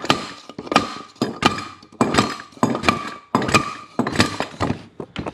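Repeated blows, about two a second, struck with a block of wood against a hydraulic cylinder to drive its piston rod out of the barrel, each blow with a short ring.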